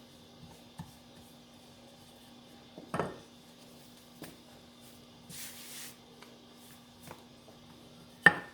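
Kitchen handling sounds: a few light taps and knocks on a counter, a brief rustle about five and a half seconds in, and a sharp click near the end, over a steady low hum.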